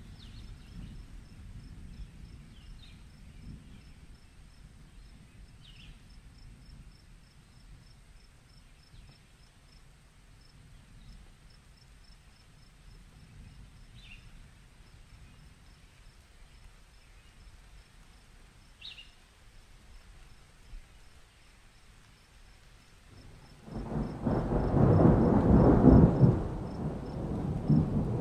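Faint night ambience of crickets chirping evenly over a low rumble, then, about five seconds before the end, a loud, uneven rumble of thunder sets in suddenly.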